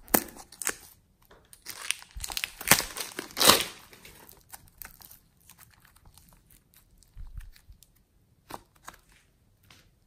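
Plastic piping bag crinkling as it is squeezed around a lump of green clay slime, in a dense run of crackles that is loudest a couple of seconds in. The crackles then thin to scattered soft, sticky clicks as the slime is pulled and stretched.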